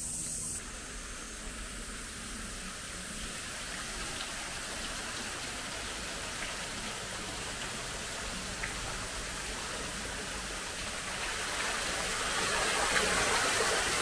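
Steady rush of water from an artificial waterfall running down a rock wall into a moat, growing louder near the end.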